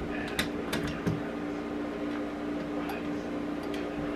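Spatula scraping and tapping against the stainless-steel bowl of a stand mixer: scattered short clicks and scrapes over a steady hum.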